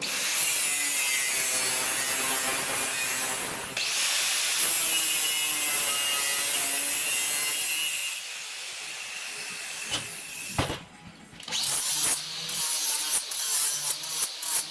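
A power tool cutting steel plate in two steady passes of about four seconds each, then a quieter stretch, a sharp click, and shorter uneven bursts of cutting near the end.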